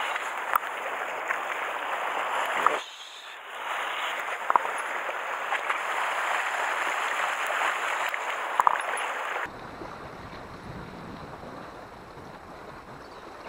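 Sea surf washing over shoreline rocks, a steady rush of water with a few sharp knocks. About three seconds in it dips briefly, and about nine and a half seconds in it drops suddenly to a quieter, duller rush.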